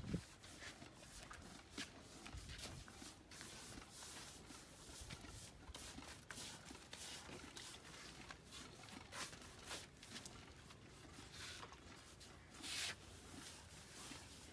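Faint, irregular scratchy swishes of paint brushes stroking and dabbing against a plastered wall, with a louder swish near the end.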